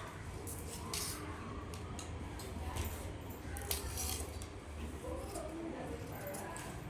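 Scissors cutting through blouse cloth: a run of irregular short snips over a low steady hum.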